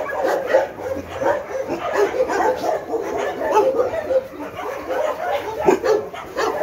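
A group of dogs barking and yelping together: many short, overlapping barks that keep coming without a break.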